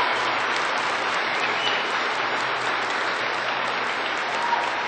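A large audience applauding: steady, dense clapping that eases a little toward the end.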